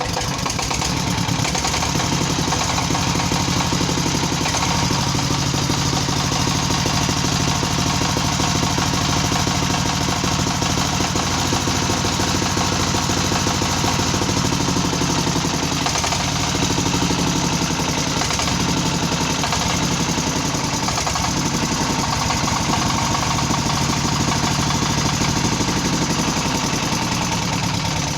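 Single-cylinder 1115-type diesel engine running steadily, with a fast, even knocking beat.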